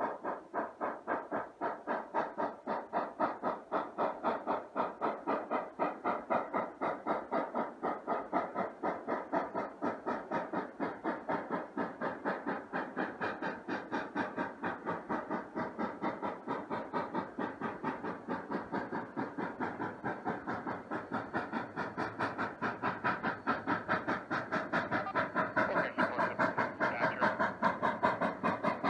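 Exhaust of D&SNG No. 476, a K-28 2-8-2 narrow-gauge steam locomotive, chuffing in a quick, even beat of about four exhausts a second as it works its train. It grows louder near the end as the engine draws nearer.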